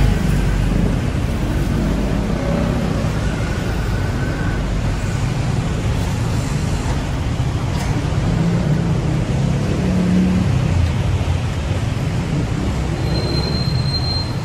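Steady city traffic: vehicle engines running and passing in a continuous low rumble. A brief high steady tone sounds near the end.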